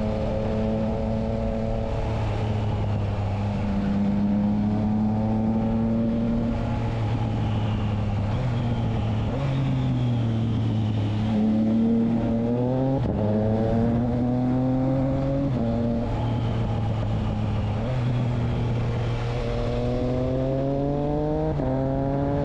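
Triumph Trident 660's inline three-cylinder engine running through a Spark aftermarket exhaust fitted with its dB killer. The engine note rises and falls as the bike is ridden, with a few abrupt jumps in pitch.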